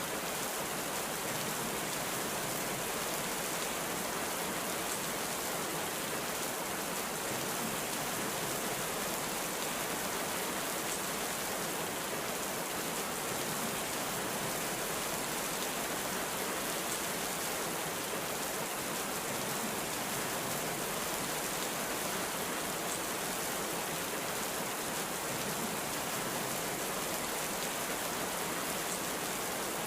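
Heavy rain falling in an even, unbroken hiss.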